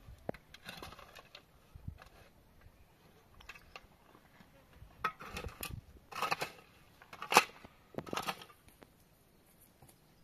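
Irregular rustling and scraping noises in short spells, with a sharper knock about seven seconds in.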